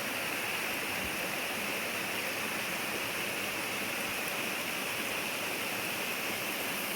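Steady rushing of flowing water from a mountain creek or small waterfall.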